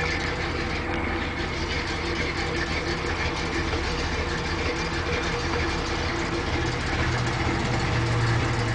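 Dodge Power Wagon W300 truck engine running steadily while pulling a heavier W400 truck, its low note growing louder near the end as it works harder.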